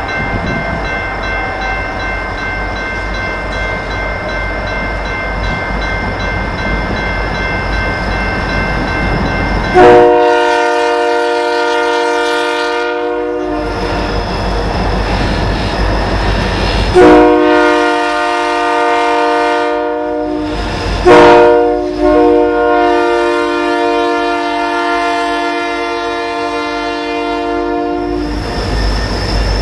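Air horn of a Buffalo & Pittsburgh freight train's lead EMD SD45-2 locomotive, sounding a chord in the grade-crossing pattern: long, long, short, long. Under the horn the train's diesel engines run as it approaches, and the rumble of the locomotives and wheels grows as they pass close near the end.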